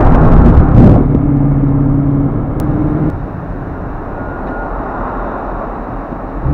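Dodge Charger Pursuit's HEMI V8 exhaust, through Power Stick mufflers with the resonator still in place, heard from inside the cabin. Loud exhaust and road noise at highway speed cuts off about a second in to a steady low exhaust drone, which drops to a quieter idle about three seconds in with the car stopped in traffic.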